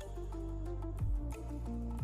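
Instrumental background music: sustained bass and melody notes over a slow beat, with a low thump at the start and another about a second in.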